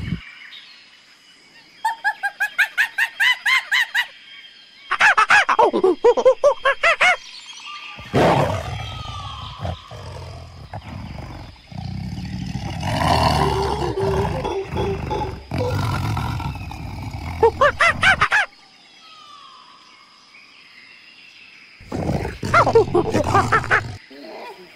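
A tiger snarling and roaring in a long deep rumbling stretch through the middle. It is broken by several bursts of loud, rapidly repeated animal calls.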